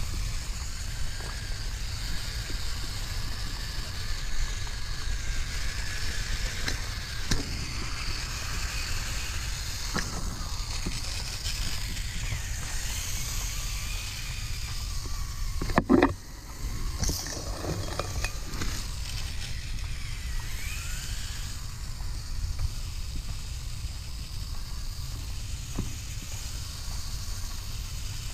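Electric motor and gear whine of an Axial Capra RC rock crawler, rising and falling in pitch as the throttle changes, with its tyres rolling over dirt and gravel over a steady low rumble. One loud knock comes about halfway through.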